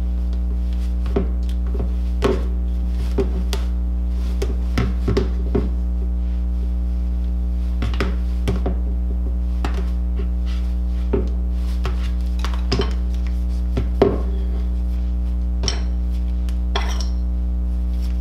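Scattered light taps and clicks as a doll's cloth torso is packed with stuffing using a spoon handle and the doll is handled on a wooden counter, over a steady low hum.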